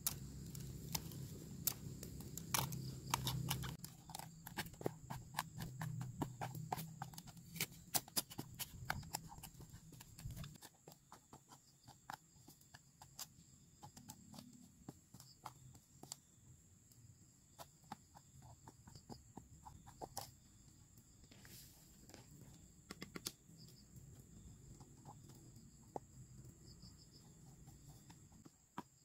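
A pestle knocking and grinding in a small metal pan, crushing garlic, shallots, candlenuts and turmeric into a spice paste, in short irregular taps. Insects buzz steadily in the background, and a low rumble sits under the first ten seconds and stops abruptly.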